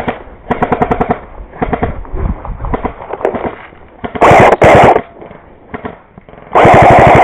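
Airsoft guns firing rapid full-auto bursts: several short bursts, then two very loud, clipping bursts, one just past the middle and one near the end.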